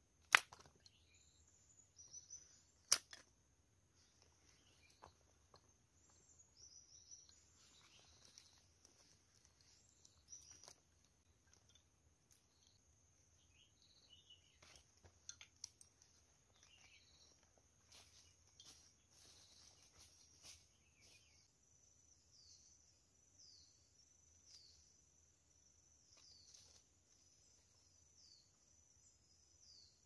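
Two sharp knocks of wooden pegs and sticks being worked into the ground in the first few seconds, then faint scattered clicks and rustles of handling sticks and leaves. A steady high insect drone runs underneath throughout.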